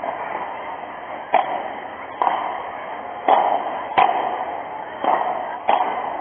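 Padel rally: a ball struck back and forth, with about six sharp pops of paddle hits and bounces at uneven intervals, each with a short echo.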